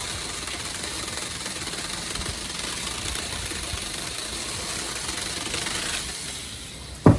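Saker battery-powered mini chainsaw cutting through a tree branch: a steady noise that tails off about six seconds in. A short, loud sound falling in pitch comes just before the end.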